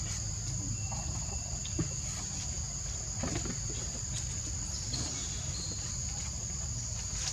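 Steady, high-pitched insect chorus in the forest, holding an unbroken drone, with a low rumble underneath.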